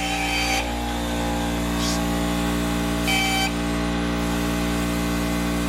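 Air compressor running steadily under the hiss of compressed air as the Harbor Freight spray gun is blown through to clean it after the colour coat.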